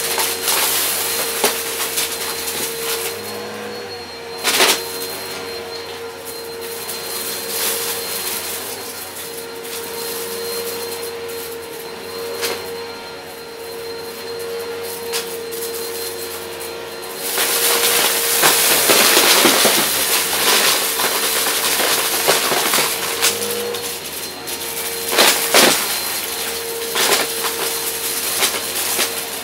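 Shark upright vacuum cleaner running on carpet with a steady motor whine, sucking up small pieces of cut cardboard that rattle and crunch through the brushroll. The crunching gets louder and denser a little past halfway, and a few hard pieces clack sharply.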